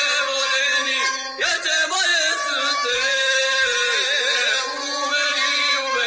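Male voices singing an izvorna Balkan folk song together, holding long notes with a wavering pitch.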